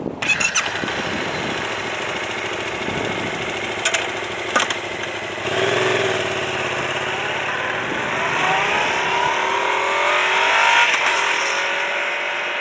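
Yamaha XSR700's parallel-twin engine running, with the sound setting in abruptly and a few sharp clicks early on. From about eight seconds in it accelerates, its pitch rising through the revs.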